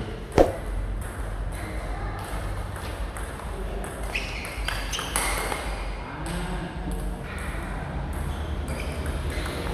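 Table tennis ball clicking off bats and the table during practice play, with one sharp click about half a second in and fainter, irregular clicks after it. A steady low hum runs underneath.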